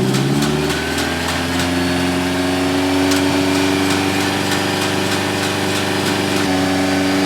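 Car engine idling steadily, its pitch creeping up a little over the first couple of seconds and then holding; it is running to charge another car's flat battery for a jump start.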